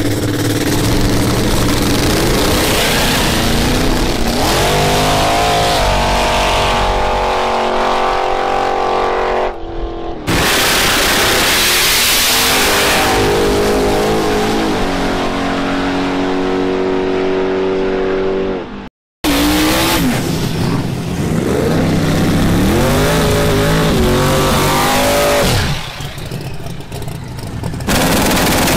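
Race car engines accelerating hard at full throttle, the pitch climbing and dropping back at each gear shift, over several separate runs. The sound breaks off suddenly about 10 and 19 seconds in.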